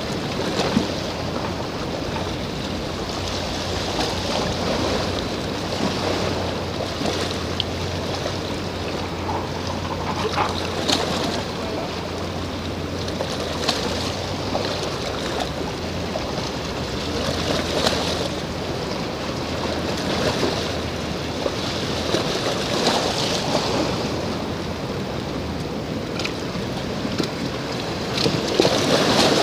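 Wind blowing across the microphone over small waves washing at the shoreline, swelling and easing every few seconds. A low steady hum runs beneath it through roughly the first half.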